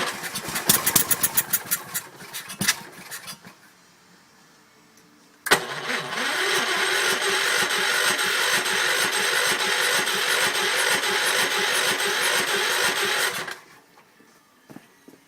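Kohler K341 single-cylinder engine on a Gravely walk-behind tractor being started. A short stretch of firing sputters and dies out. After a pause of a few seconds it catches abruptly and runs steadily for about eight seconds, then stops suddenly.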